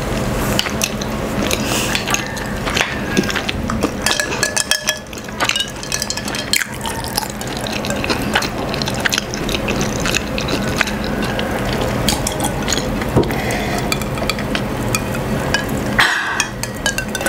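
Close-miked eating sounds: chewing a last mouthful, then drinking juice from a glass, with wet mouth noises and many small clicks.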